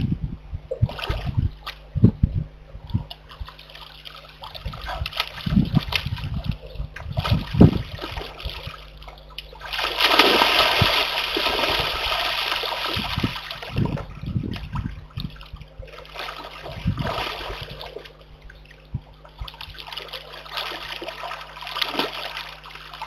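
Brown bear cub splashing in a shallow muddy pond: scattered splashes and sloshes, then several seconds of continuous churning splashing about ten seconds in, then more splashes.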